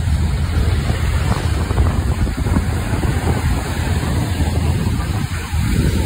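Wind buffeting the microphone, a steady low rumble over the wash of breaking surf.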